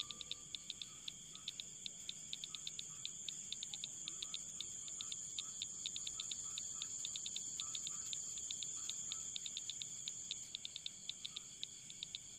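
Insects calling: a steady high drone with rapid, even chirping pulses over it.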